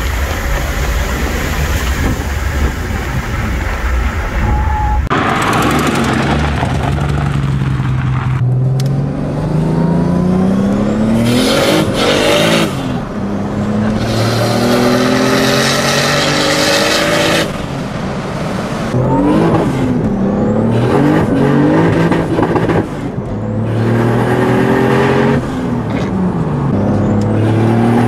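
BMW E28 engine heard from inside the cabin. It opens with a steady cruising note under road noise, then after a cut it accelerates hard, its pitch climbing and dropping back at several gear changes.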